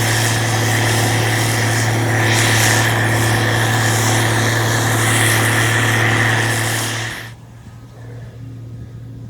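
A machine's engine runs loud and steady with a strong low hum. About seven seconds in, it drops suddenly to a much quieter hum.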